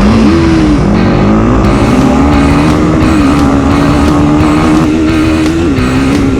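ATV engine revving hard from a launch, its pitch climbing and wavering for the first second or so, then holding a steady high drone at full throttle.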